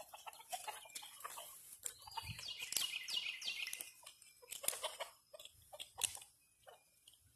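Chickens squawking in alarm while a hound pup chases them, with a run of quick, falling high calls about two and a half to three and a half seconds in. Scattered light knocks and clicks come and go throughout.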